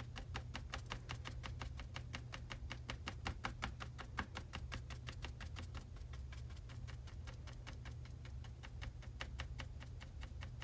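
Paintbrush tapping black acrylic paint onto a canvas panel: a rapid, even run of light taps, several a second, stippling the paint on.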